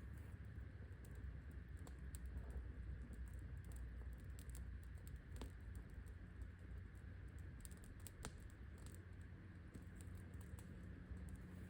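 Small campfire crackling softly, with sparse, irregular little pops and ticks over a low steady background.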